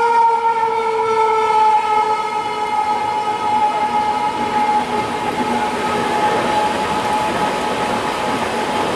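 Horn of the Rajdhani Express's WAP-7 electric locomotive sounding, its pitch falling slightly as it fades away over the first few seconds. Then the steady rushing noise of the train's LHB coaches running past at speed.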